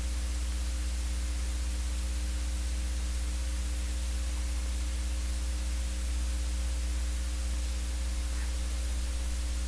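Steady low electrical hum with a constant hiss: the noise floor of the recording, with no other sound.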